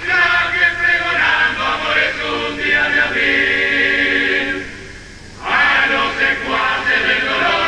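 Uruguayan murga chorus singing together, with a short break about five seconds in before the voices come back in.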